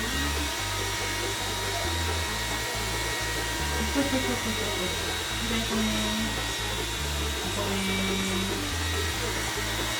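Hand-held hair dryer blowing steadily on a puppy's wet coat: a constant airy hiss with a thin motor whine. Background music with a bass line plays under it.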